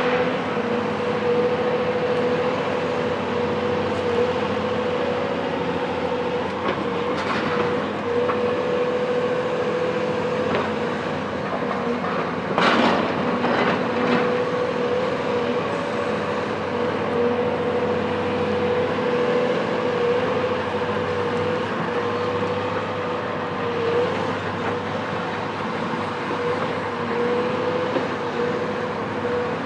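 Cat 374 hydraulic excavator's Cat C15 diesel running under load with a steady mechanical whine and hum, and a few short crashes of demolition debris, the loudest about halfway through.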